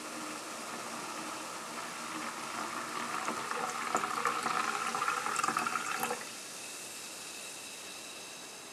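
A fizzy dark drink poured in a thin stream into a pint glass, the splashing and crackle of foam growing louder as the glass fills, then stopping suddenly about six seconds in. A softer steady hiss remains afterwards.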